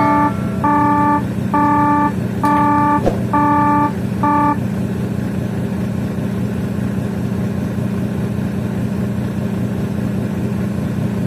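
A vehicle engine runs with a steady low hum. Over it, a run of regular electronic beeps just under a second apart stops about four and a half seconds in.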